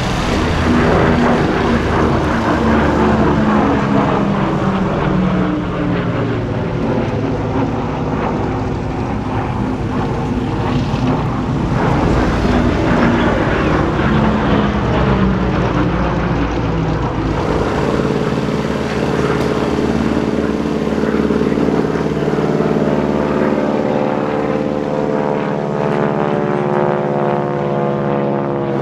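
Lockheed P-38 Lightning's twin Allison V-12 piston engines droning in a flypast, the engine pitch sliding as it passes. About two-thirds of the way in, the sound changes to the steadier drone of a radial-engine biplane flying by.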